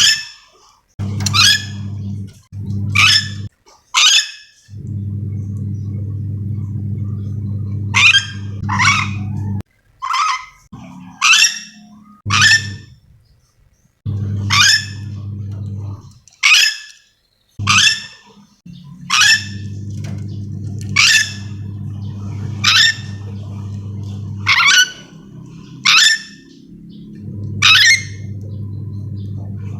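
A nuri dora, a crested-beak parrot endemic to Sulawesi, giving its call: about twenty short, harsh screeches, a second or two apart. A steady low hum runs underneath, dropping out now and then.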